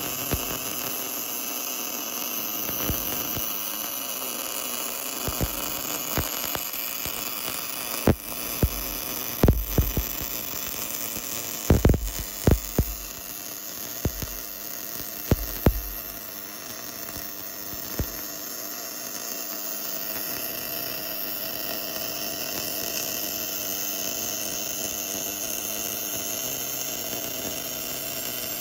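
Portable bore-welding machine running during automatic surfacing of a worn bore: a steady hum and hiss, with a string of sharp knocks and pops between about two and eighteen seconds in.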